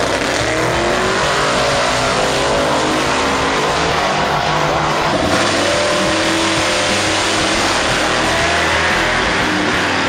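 Drag-racing cars launching down the strip at full throttle, engine pitch climbing as they accelerate. About five seconds in the sound changes to a pair of classic V8 muscle cars pulling away side by side.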